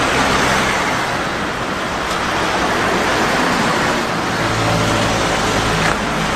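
Street traffic: cars driving past close by, engine and tyre noise, with one car's engine hum louder for a couple of seconds past the middle.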